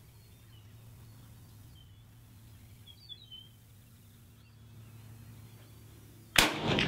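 A few faint bird chirps over a quiet outdoor background, then, near the end, a single sharp shot from a Soviet Mosin PEM sniper rifle fired through its Bramit muzzle suppressor.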